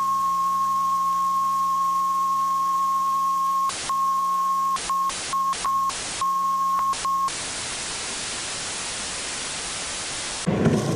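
A steady, high electronic test tone over a hiss. It cuts out and back in several times between about four and seven seconds in, then gives way to plain static hiss.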